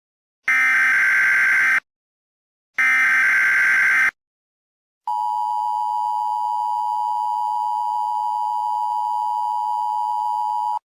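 Emergency Alert System tones: two short bursts of screeching SAME header data tones, then after a pause the steady two-tone EAS attention signal held for nearly six seconds before cutting off abruptly. They mark the start of an emergency alert broadcast.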